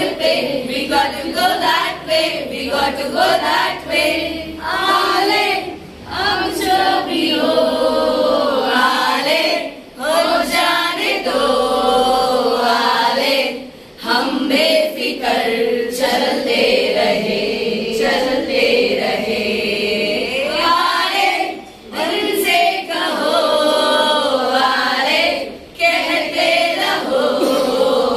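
A group of women singing together as a choir, with a short pause between phrases every few seconds.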